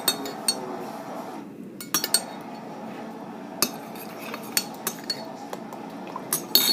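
A utensil clinking and scraping against a bowl while slime is stirred, with irregular sharp taps.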